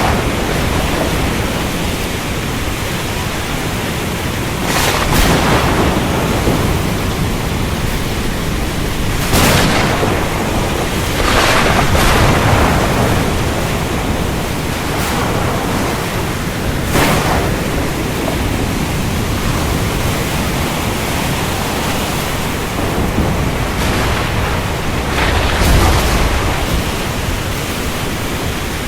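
Steady rain falling through a thunderstorm, with about five short louder surges of thunder, the heaviest low rumble near the end.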